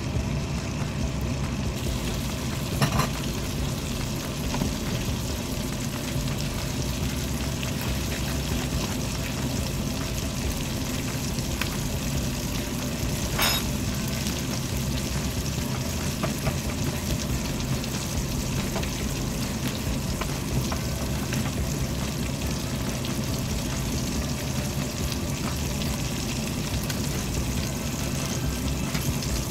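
Chicken breast sizzling steadily as it sears in melted butter and bacon fat in a frying pan. Two brief clicks sound over it, one a few seconds in and one near the middle.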